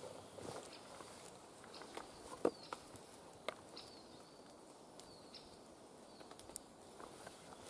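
A few light wooden knocks as split firewood is handled and a piece is stood upright on a chopping block, the sharpest about two and a half seconds in. Short chirps of woodland birds, rising and falling in pitch, come in between.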